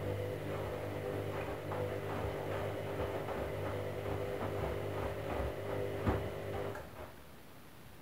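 Candy front-loading washing machine's motor turning the drum in a wash tumble, with a steady hum and a run of soft knocks as the down jacket load lifts and drops, one louder knock near the end. The motor stops about seven seconds in as the drum comes to rest between tumbles.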